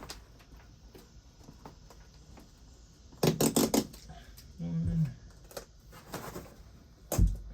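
Paper backing being peeled off self-adhesive Velcro strips: a short crackling rip about three seconds in, with light handling rustle around it. A single deep thump near the end.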